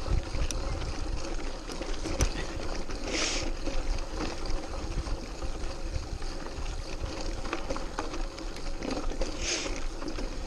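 Mountain bike climbing a loose, rocky dirt trail: tyres crunching over stones and the bike clicking and rattling, under a steady low rumble of wind on the microphone. There are two brief hisses, about three seconds in and near the end.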